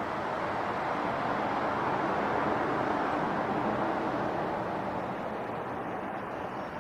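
Road traffic noise: a steady rush of tyres and engines that swells as a vehicle passes, peaking about two seconds in, then slowly fades.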